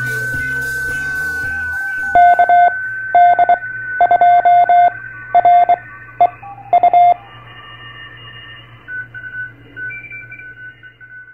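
Intro music fades about two seconds in. Then a single-pitch Morse code (CW) tone keys on and off in dots and dashes for about five seconds, over a steady whistle and a low hum from a ham radio receiver. Fainter beeps and tones come and go until it cuts off at the end.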